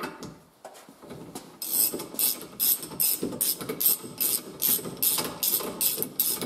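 Ratchet wrench clicking in quick, even strokes, about three a second, undoing the hub nut on the trailer's bogie wheel.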